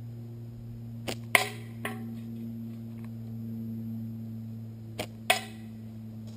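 Pickle-fork slingshot being shot: two sharp snaps with a short ring, about a second in and again about five seconds in, each just after a fainter click. A steady low hum runs underneath.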